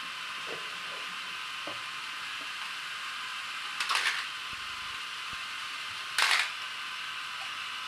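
Small battery motors of motorized toy trains whirring steadily on plastic track, with two short plastic clattering crashes, about four and six seconds in, as trains run into a pile of derailed toy trains.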